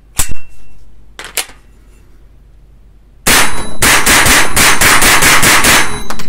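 A sharp metallic clack as the Walther-made Colt M4 OPS .22 LR rifle is loaded. A few seconds later the rifle fires a rapid semi-automatic string of about a dozen shots, roughly five a second, without a stoppage until the magazine runs empty: it now feeds and cycles with these older cartridges.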